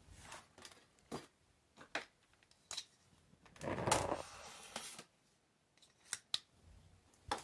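A small knife slitting packing tape along the seam of a polystyrene foam box, a scraping rasp about midway, with scattered light clicks and taps of the foam and knife being handled.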